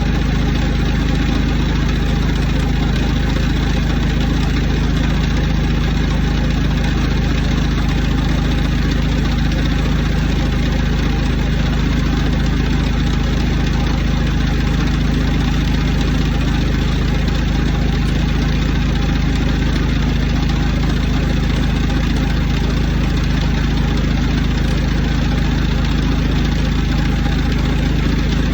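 Milling machine running steadily while cutting metal: an even, unchanging machine hum with a hiss above it.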